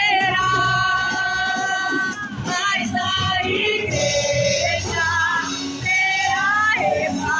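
Church band playing a worship song with a lead vocal, with long held sung notes over the instrumental accompaniment.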